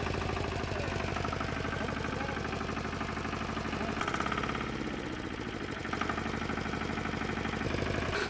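Antor 510 single-cylinder diesel engine idling steadily on its newly set idle, running with a freshly replaced clutch pilot bearing. It gets a little louder about four seconds in, then briefly softer.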